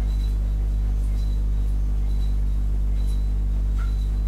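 Steady low electrical hum with several overtones, with a faint high tone coming and going about once a second: the background noise of a home desktop-microphone recording.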